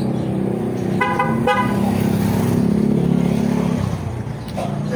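Two short vehicle horn beeps about a second in, half a second apart, over the steady hum of a motor vehicle engine running close by that eases off near the end.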